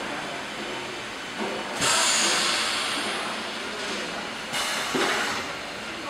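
Longitudinal seam welding machine working amid steady machine noise. There are two sudden hisses: a loud one about two seconds in that fades over a second or so, and a shorter one about four and a half seconds in.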